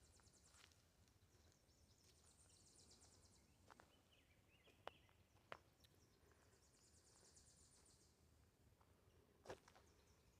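Faint woodland ambience: a high, rapid trill that lasts a few seconds and comes back several seconds later, with a few sharp clicks in between.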